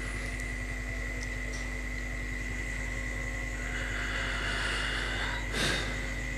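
Steady hum and hiss of background noise with a thin, constant high tone. A brief swish sounds shortly before the end.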